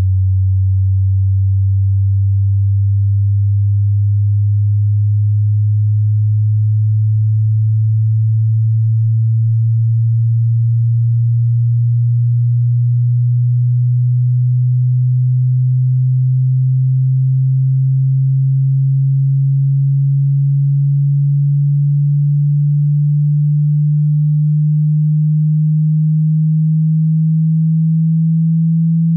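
Pure sine tone held at a steady loudness, slowly rising in pitch from about 95 Hz to about 165 Hz. It is the low part of a hearing-test frequency sweep that climbs from 20 Hz to 20 kHz.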